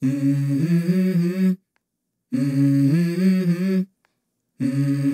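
Music: a low voice humming a stepping melody in short phrases of about a second and a half, broken by brief silences, with a third phrase starting near the end.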